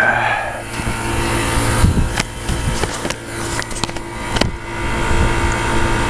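Single-phase 3-ton Climate Master water source heat pump running in heating mode, its compressor and blower making a steady hum. A few sharp clicks and knocks from handling sound over it, the loudest about four and a half seconds in.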